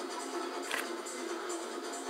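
Music accompanying an acrobatic gymnastics floor routine, thin-sounding with no bass. A single sharp knock about three-quarters of a second in.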